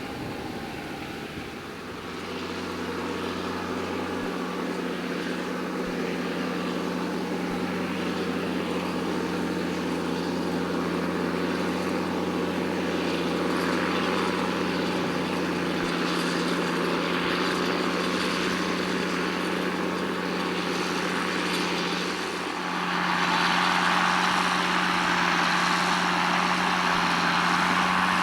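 Diesel farm machinery engine running steadily, getting louder about two seconds in and again near the end.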